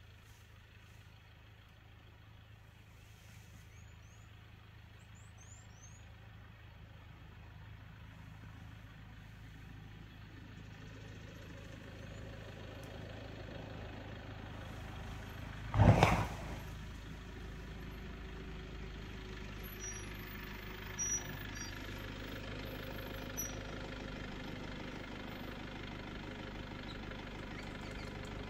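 A motor vehicle's engine idling steadily, slowly growing louder. About halfway through there is a single loud thump.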